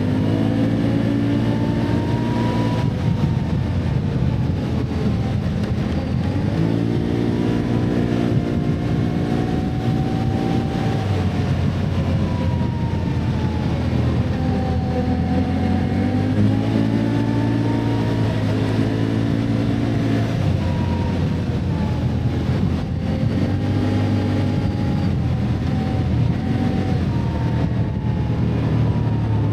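Can-Am ATV engine running under changing throttle while riding. Its pitch rises and falls every few seconds as the machine speeds up and slows on a rough trail, with a higher whine following the engine speed.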